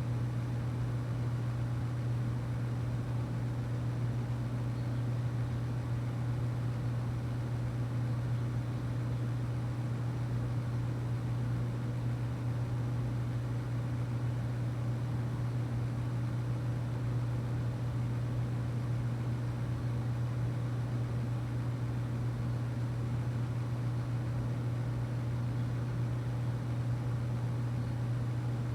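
A steady low droning hum with a faint even hiss over it, unchanging throughout.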